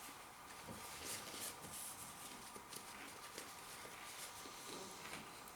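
Faint sounds of someone eating, chewing with scattered small clicks, over a faint steady hum.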